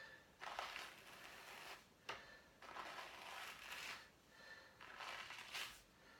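Wool hand cards brushing sheep's wool: faint, scratchy strokes of the wire card teeth drawn through the fleece, roughly one a second, as the wool is carded for spinning.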